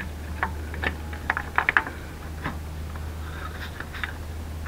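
Small sharp clicks and taps of plastic and metal as a transmission linear solenoid is worked by hand and seated into its bore, with a quick cluster of clicks about a second and a half in, over a steady low hum.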